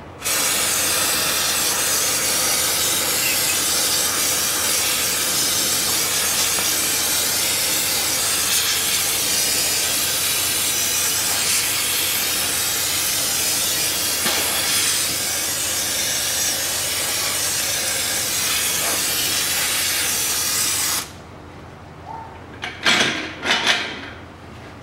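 Aerosol can of carburetor cleaner spraying in one long, continuous hiss that stops abruptly about 21 seconds in. A couple of short noises follow near the end.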